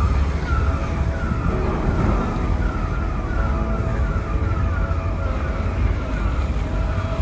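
Outdoor ambience: a steady low rumble, with a short falling chirp repeated about twice a second throughout.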